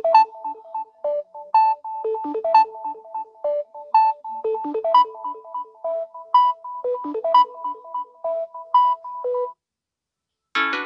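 Samsung Galaxy A32 One UI 4 ringtone playing: a melody of short, separate electronic notes that stops about nine and a half seconds in. After a moment of silence, the next ringtone starts just before the end.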